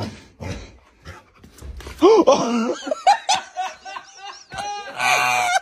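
A dog making odd pitched vocal noises while a person laughs hard. The loudest part is a sustained high-pitched sound near the end.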